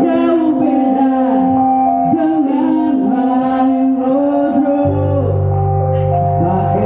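Live band music: a man sings over held guitar and band notes, and deep bass notes come in about five seconds in.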